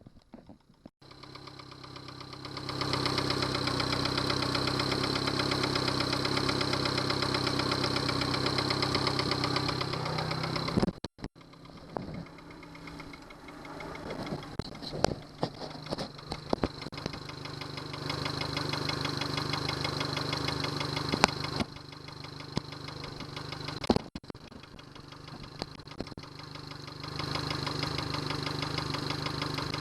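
Yamaha 70 hp outboard motor running steadily, cutting out suddenly about a third of the way through, then coming back unevenly with sharp irregular knocks before settling into a steady run again. The knocking is the one the owner traces to a Honda fuel-line connector fitted instead of a Yamaha one.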